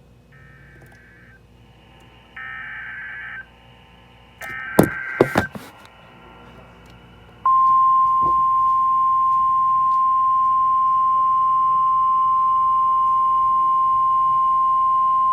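Emergency Alert System header from a weather radio broadcast: three short bursts of warbling SAME digital data, each louder than the last, with a few sharp clicks during the third. About seven and a half seconds in, a steady, loud 1050 Hz NOAA Weather Radio warning alarm tone begins and holds.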